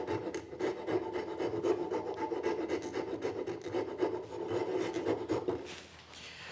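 Round wood rasp filing inside a drilled hole in a wooden board with rapid back-and-forth strokes, enlarging a hole that is a little too tight. The rasping stops shortly before the end.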